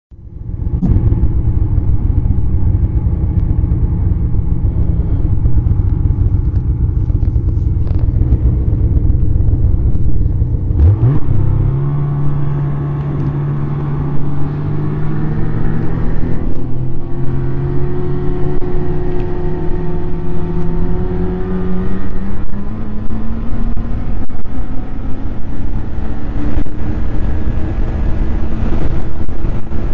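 Snowmobile engine running under way: a heavy low rumble, a quick rev about eleven seconds in, then the engine note climbing gradually as the sled gathers speed.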